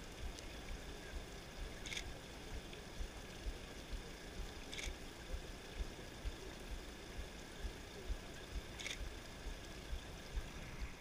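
Outdoor street ambience: a steady background noise with uneven low rumbling on the microphone and three faint, brief clicks.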